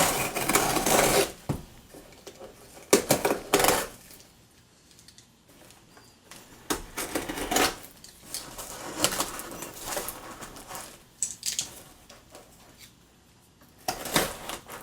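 Cardboard shipping box being cut open with a utility knife and handled: bursts of scraping, slicing and clicking, with short pauses between them.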